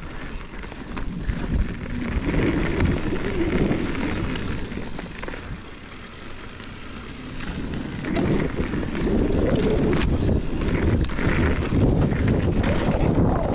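Mountain bike descending a dirt trail at speed: tyres rolling over dirt and rock and wind on the microphone, with occasional sharp knocks from the bike. It gets louder from about eight seconds in.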